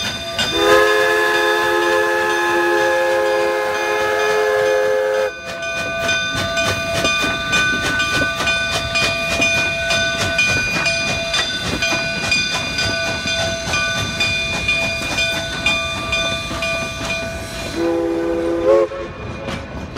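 Cumbres & Toltec narrow-gauge steam locomotive 484, a K-36 2-8-2, sounds a chime steam whistle for about five seconds as it passes. The passenger cars then roll by with a rapid clatter of wheels over the rails and steady high tones, and the whistle gives a second short blast near the end.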